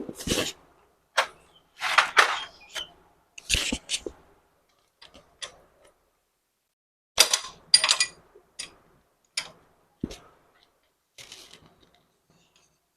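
Scattered metallic clinks, knocks and short rattles of tools and engine parts being handled while a new timing chain and rollers go into a motorcycle engine. Two of the strikes, about seven and eight seconds in, ring.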